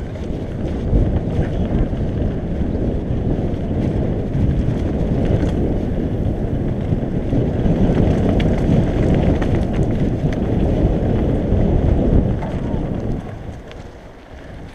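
Wind buffeting the camera's microphone together with the rumble of mountain bike tyres rolling fast over a gravel trail, a steady low rush that drops away briefly near the end.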